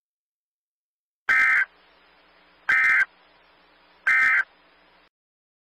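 EAS end-of-message data tones: three short, identical buzzing data bursts about a second and a half apart, signalling the end of the alert.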